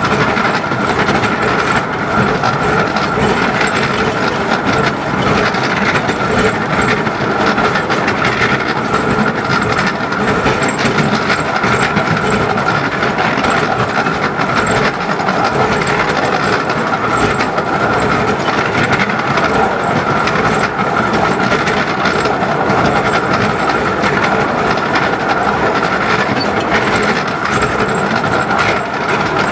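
A 10¼-inch-gauge narrow-gauge steam train on the move, heard from the carriage just behind the locomotive: a steady, loud running noise with the clickety-clack of the wheels over the rail joints.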